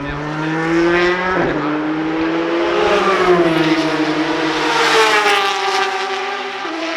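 Race car engines passing at speed on the circuit. One car's engine note drops sharply in pitch about a second and a half in as it goes by, and another rises and then falls in pitch as it passes near the end.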